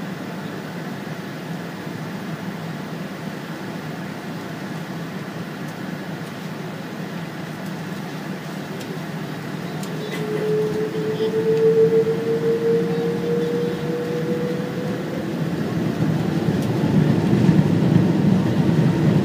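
Boeing 777's engines and cabin noise heard from a seat over the wing: a steady hum while taxiing, then, about ten seconds in, the engines spool up for the takeoff roll with a slowly rising whine, and the noise keeps growing louder toward the end.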